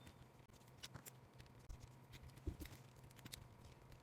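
Near silence with a few faint, scattered small clicks: a hex driver working the tiny screws out of a mini RC crawler's upper link truss.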